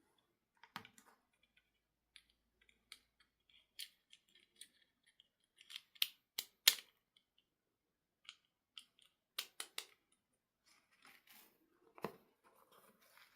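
Small plastic toy parts and packaging being handled: irregular sharp clicks and taps, the loudest a pair about six and a half seconds in, with soft rustling near the end.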